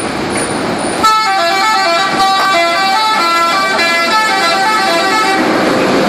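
Telolet horn of a Pahala Kencana coach: a multi-tone musical air horn playing a long tune of quick, changing notes, starting about a second in and stopping near the end, over steady street noise.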